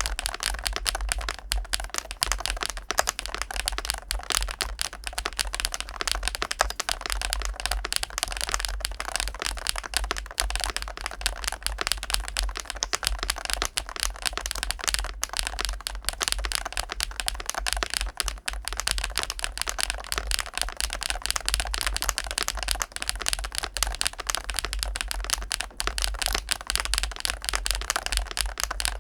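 Fast, continuous typing on a GLITTER65 HE Pro keyboard with magnetic Hall-effect switches in a polycarbonate case: a steady stream of keystroke clacks, many a second.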